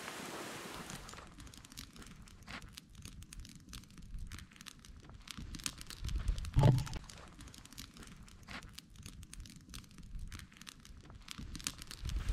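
Campfire crackling, with a scatter of sharp irregular pops and snaps. There is one dull thump a little past halfway.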